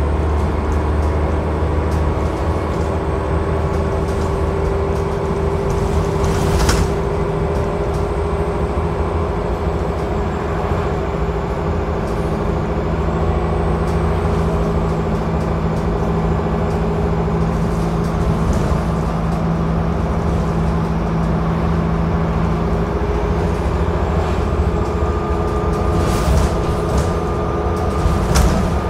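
Dennis Trident double-decker bus heard from inside the passenger saloon while under way: a steady drone from the engine and drivetrain, with whining tones that drift slowly up and down in pitch as the bus changes speed. A sharp rattle or knock comes about seven seconds in, and several more come near the end.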